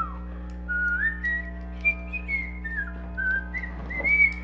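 A person whistling a tune, a single clear note stepping up and down in pitch, with a few light clicks from plastic parts being handled.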